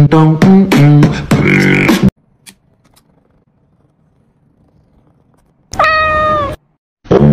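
A loud, rhythmic run of meows set to a beat for about two seconds, then near quiet. A single drawn-out cat meow follows near the end, and the rhythmic meowing starts up again just before the close.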